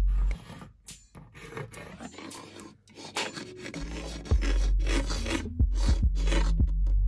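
Paint marker nib scratching and rubbing across a wooden surface as a tag is written: many short scratchy strokes with brief pauses between them.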